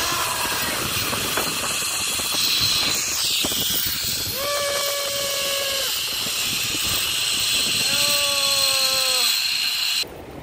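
Zipline trolley pulleys running along the steel cable, with the rush of air, making a steady hiss. Three long held tones sound over it, and the hiss cuts off abruptly near the end.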